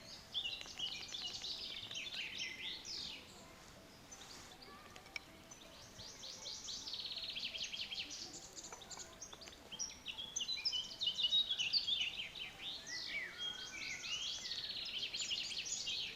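Several songbirds singing at once: overlapping chirps, quick high trills and rapid repeated notes, growing louder and busier about ten seconds in.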